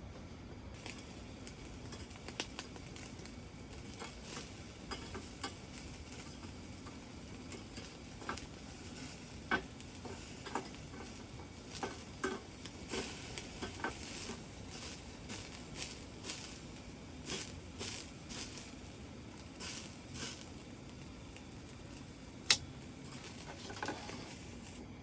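Beef sizzling on a grill over a fire-pit brazier, with a steady hiss broken by irregular crackles and pops of spitting fat, one sharp pop near the end.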